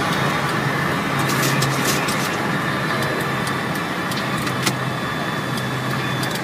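Steady flight-deck noise of a Boeing 737-200 in flight: a broad rush of air with a constant low hum and a faint high whine, broken by scattered light clicks.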